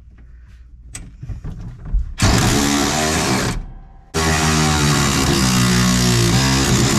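Guitar-driven background music that starts suddenly about two seconds in, drops out briefly near the four-second mark and comes back. Before it starts there are only a few faint clicks and knocks.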